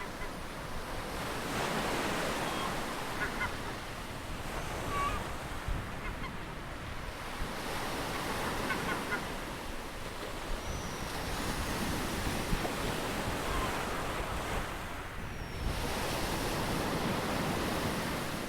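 Ocean waves breaking on a shore, the surf swelling and ebbing every few seconds, with a few short bird calls and thin falling whistles over it.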